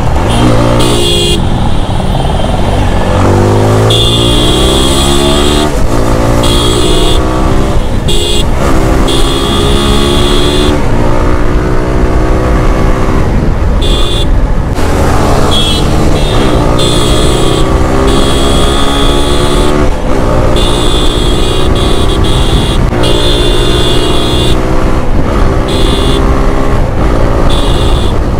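Motorcycle engine pulling through the gears while riding: its pitch rises under throttle and drops at each shift, over and over.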